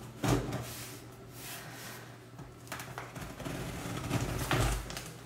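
Scissor blade scraping and slitting packing tape on a cardboard box, in several short scratchy strokes, over a steady low hum.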